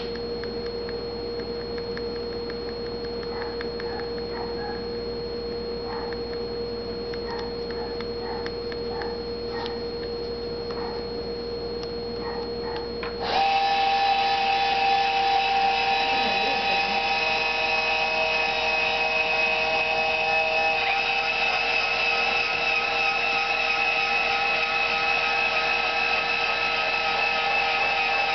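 Meade LXD55 German equatorial mount's drive motors and gears whining as it is moved from the Autostar handbox: a faint steady whine, then about halfway through a sudden, louder whine of several tones as the mount slews at speed, with a slight change in the tone about three-quarters of the way through.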